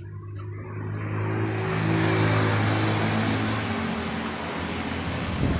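A motor vehicle driving past, its steady engine hum and road noise swelling over the first couple of seconds and then easing off.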